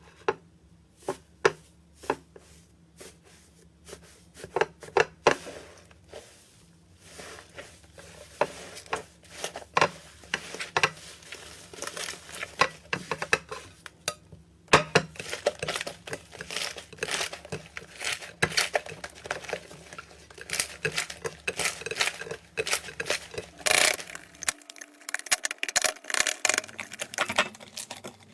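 Slime being worked by hand, squeezed and poked: a run of sharp sticky clicks and small pops, sparse at first and growing denser and louder about halfway through, then stopping abruptly at the end.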